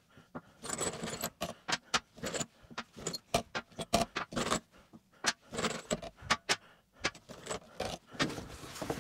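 Small steel bolts clinking and tapping as they are picked out of a plastic cup and set down one at a time on a metal-topped workbench, with a quick run of irregular clicks and some light scraping.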